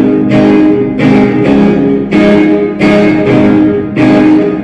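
Electric guitar played through an amplifier, strumming loud rock-and-roll chords, about two strokes a second.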